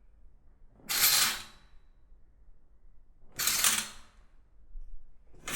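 Living-room window curtain drawn three times in quick swishes, the fabric and its hangers sliding along the rail, each pull about half a second long and the pulls a little over two seconds apart; the last starts near the end.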